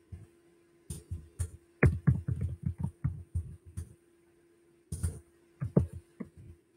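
Irregular runs of light taps and knocks with dull low thumps, in two bursts of a few seconds each, over a faint steady hum.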